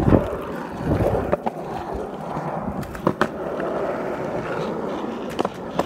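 Skateboard wheels rolling on concrete, with several sharp clacks as the board's nose and tail touch down while the rider does a revert into a nose manual and a manual.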